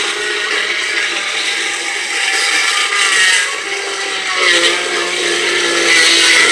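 Magic Bullet blender motor running, churning ice, peaches and blueberries into a thick smoothie; the motor's pitch wavers a little as the load shifts.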